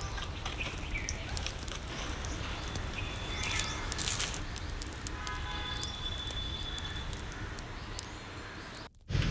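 Wood fire in a clay stove crackling, with many small sharp pops over a steady hiss as it burns around a sealed tin of wood being turned into charcoal. The sound cuts out abruptly near the end.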